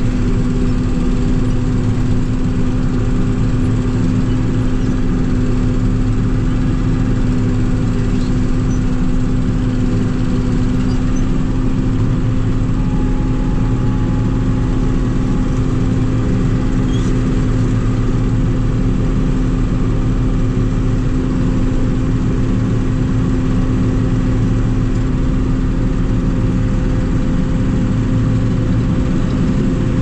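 Combine harvester engine running steadily under a constant low hum that does not change.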